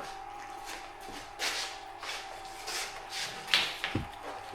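Handling the parts and packaging of a new soldering station: several short rustles and light knocks as pieces are moved and set down, over a steady faint hum.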